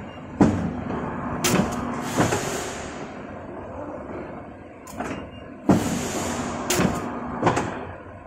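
115 cm hydraulic guillotine paper cutter running two cutting cycles about five seconds apart. Each cycle is a sharp thump as the clamp and blade come down, then about a second of hiss and a couple of clunks.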